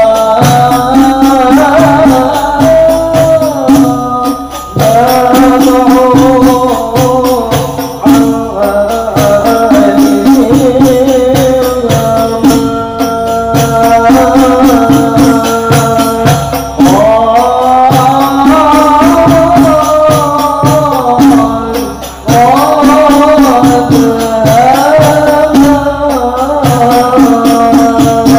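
Sholawat al-Banjari: a man singing an Arabic devotional song in long melodic phrases over a group of rebana (terbang) frame drums beating a steady, interlocking rhythm. The singing pauses briefly between phrases, a few times, while the drums carry on.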